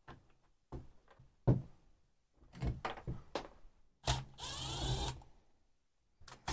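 A few sharp clicks and knocks of metal tools on the chainsaw crankcase, then about four seconds in a cordless power driver whirs for about a second, backing out a Torx screw from the anti-vibration mount pocket.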